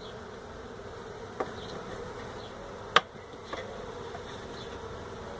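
Honey bee colony buzzing steadily in a steady low drone from an opened hive. A faint click about one and a half seconds in and a sharp, louder click about three seconds in.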